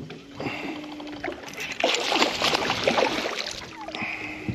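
Hooked barramundi thrashing at the surface on a bent rod, throwing up splashes in bursts, loudest around two seconds in and again near the end. A steady low hum comes and goes underneath.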